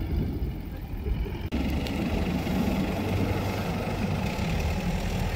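Engine of a Holden double-cab pickup running as it drives away up a soft sand track, a steady low rumble that grows louder about a second and a half in.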